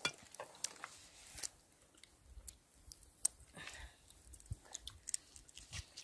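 Cooked crab being eaten by hand: irregular small cracks and clicks of shell being broken and picked apart, with chewing.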